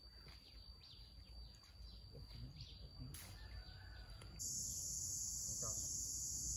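Open-air ambience with faint bird chirps. About four seconds in, a loud, steady, high-pitched insect drone, like crickets or cicadas, starts abruptly.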